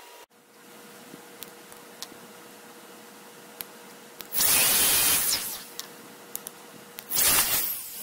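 Milwaukee M18 cordless wet/dry shop vac motor, with its housing opened up, switched on twice by a wireless remote-control relay: each time it starts suddenly with a loud whoosh, runs for about a second and cuts off, spinning down. Light clicks come in between.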